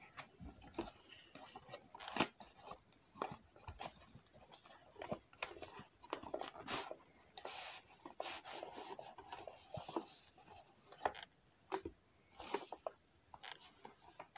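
Cardboard box and white packing material being handled and slid apart: irregular crinkling, rustling and small taps and clicks of packaging.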